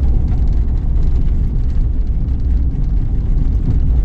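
Steady low rumble of a vehicle driving, heard from inside the cabin: engine and tyre noise on the road.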